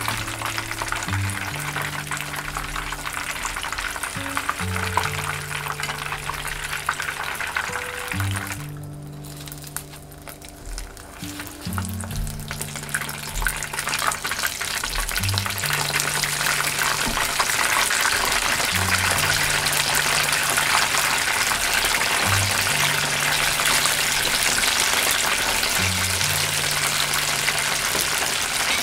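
Battered chicken pieces deep-frying in a pan of hot oil, a steady sizzle and crackle of bubbling oil. The sizzle drops away briefly about nine seconds in, then comes back louder from about twelve seconds on, with the pan full of pieces bubbling hard. Background music with a bass line plays throughout.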